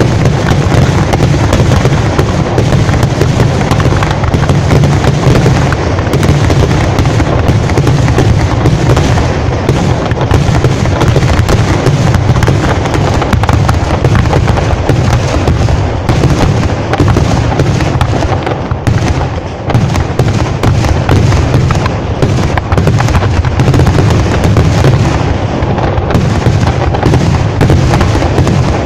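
A fireworks barrage of ground-fired crackers and shells going off in a dense, unbroken string of loud bangs, with one brief lull a little past the middle.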